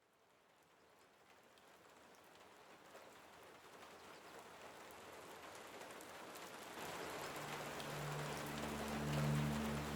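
Steady rain falling on a surface, fading up from silence, with a low sustained chord of background music coming in about seven seconds in.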